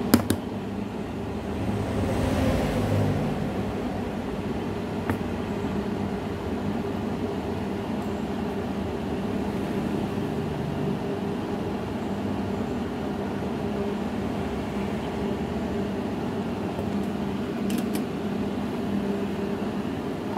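Steady whirring hum of a small motor or fan, with a brief louder rush of air about two seconds in and a few light clicks.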